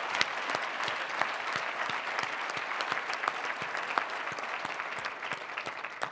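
Audience applause, a dense patter of many hands clapping that dies away near the end.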